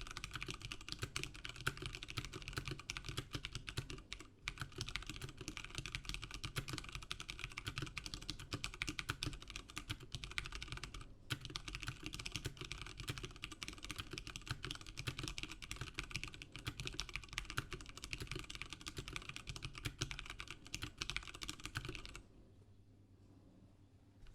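Fast, continuous typing on an Ozone Strike Battle mechanical keyboard with Cherry MX Brown tactile switches in an aluminum plate and Ducky S4 PBT double-shot keycaps: a dense clatter of keystrokes with two brief pauses. The typing stops a couple of seconds before the end.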